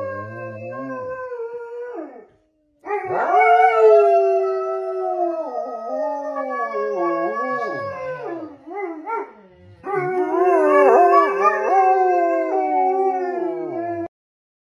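Wolfdog howling while lying down: long, wavering howls that slide up and down in pitch, broken by a short pause about two seconds in and a dip around nine and a half seconds. The howling cuts off abruptly near the end.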